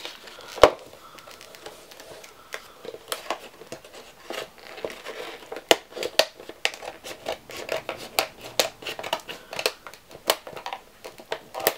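Clear plastic blister packaging being handled and cut open: irregular crinkling and crackling of the plastic, with many sharp clicks and snaps, one loud click just under a second in.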